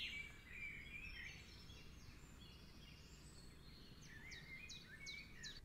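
Faint birdsong: high chirps and warbling, with several quick falling notes in a row near the end, over a low steady background hum.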